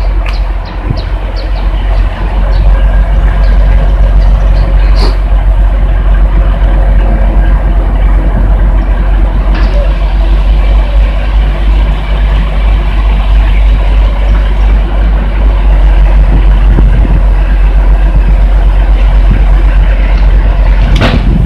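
Heavy truck diesel engine running steadily and loud, driving the hydraulics of the truck-mounted crane lifting a steel silo. A few sharp clicks and knocks come in the first seconds and once more about five seconds in.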